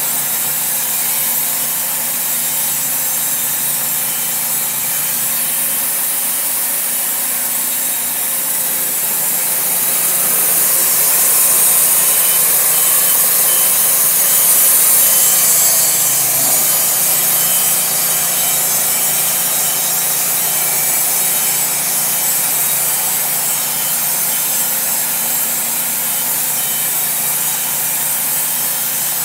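Wood-Mizer LT40 band sawmill running, its band blade cutting lengthwise through a reclaimed Douglas fir piling in a steady, even sawing noise. The cut grows louder for several seconds around the middle, then settles back.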